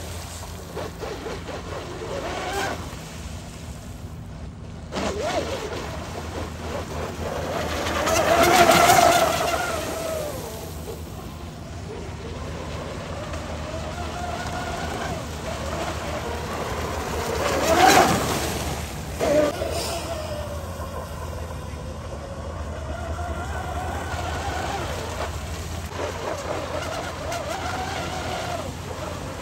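Pro Boat Blackjack 42 brushless RC racing catamaran speeding across open water: the motor's whine and hull spray rise and fall as the boat runs near and away, swelling loudest twice, about a third and about two thirds of the way through.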